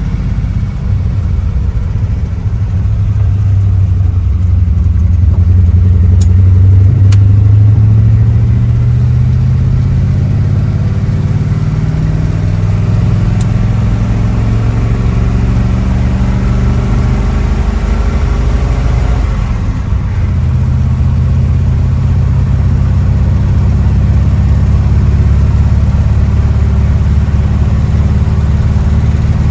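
Old car being driven, its engine running under load. The engine note climbs over the first several seconds, changes pitch a few times, dips briefly about two-thirds of the way through, then holds steady.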